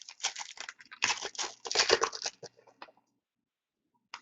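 Foil trading-card pack wrapper being torn open and crinkled, a dense rustling crackle for about two and a half seconds that stops. A single short click near the end.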